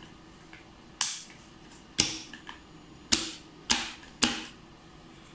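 LS MEC GMC-9 magnetic contactors clacking as they pull in and drop out under a PLC start/stop circuit. There are five sharp clacks, the first two about a second apart and the last three in quicker succession.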